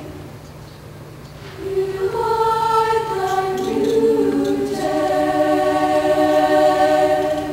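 Show choir singing: after a brief hush, the voices come back in with rising chords, settling at about five seconds into one long held chord.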